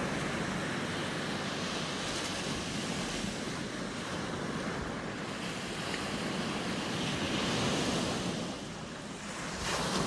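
Ocean surf breaking and washing up a sandy beach, a steady rushing wash that grows louder about seven seconds in, dips briefly, then swells again at the very end.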